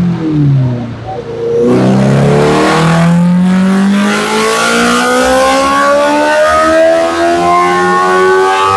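Honda CB1000R's inline-four through a full Akrapovic exhaust on a dyno. The revs fall away over the first second or so, then climb steadily in one long rising pull, a full-throttle dyno run.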